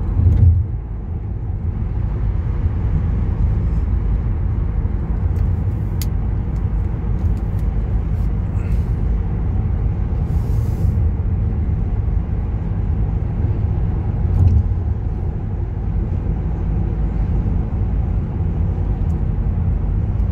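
Steady road and engine rumble heard from inside a car cruising on a motorway, with a couple of faint clicks and a brief hiss about halfway through.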